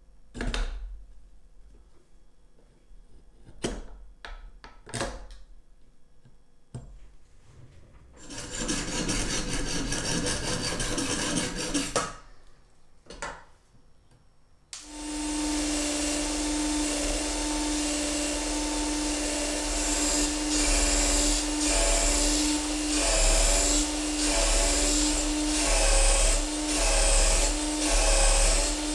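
A few sharp metal clicks from pliers working a small aluminium pin, then a few seconds of scraping. About fifteen seconds in, a disc sander starts and runs with a steady hum. From about twenty seconds in, an aluminium part is pressed against the sanding disc again and again, the grinding swelling about once a second.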